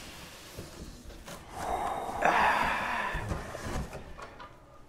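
Cardboard shoe boxes scraping and rustling against the shipping carton as they are pulled out, a scratchy rasp that starts about a second and a half in and lasts about two seconds.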